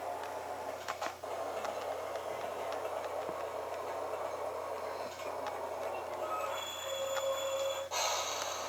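HO-scale Bachmann Brill trolley's Digitrax SDH166D sound decoder running its Budd RDC diesel railcar sound: a steady engine sound as the model runs on the track, with a couple of clicks about a second in and a brief steady tone shortly before a louder noisy burst near the end.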